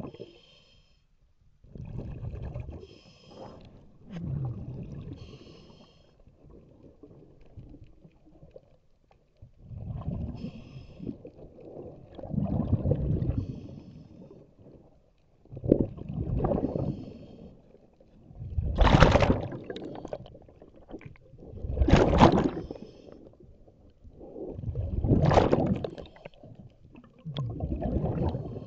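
Scuba diver breathing underwater through a regulator: a hissing inhale, then a rush of exhaled bubbles, repeating about every three seconds. The exhales grow louder in the second half.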